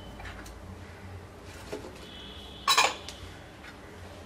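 Cauliflower florets tipped by hand into a cooking pot of raw broken rice: a few light knocks, then a short double clatter of dishware against the pot, with a metallic ring, about two and a half seconds in.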